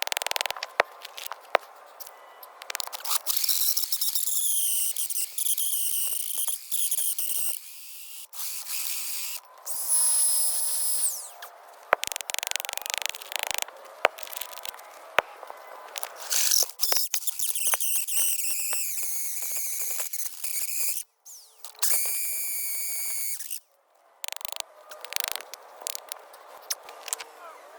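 Power drill boring into concrete retaining-wall blocks, running in short bursts with a high whine that wavers in pitch. The bursts stop and start abruptly, with brief gaps between them.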